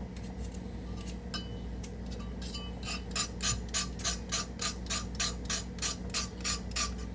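Potato being peeled with a vegetable peeler, short rasping scrapes that come a few at a time at first and then settle into an even run of about three strokes a second.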